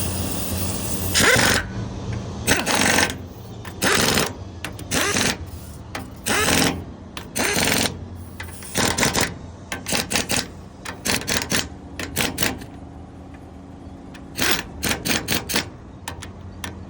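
Impact gun run in short repeated bursts, hammering as it drives down the hydraulic filter cover bolts, kept on its lowest setting so the bolts don't snap. A steady low hum runs underneath.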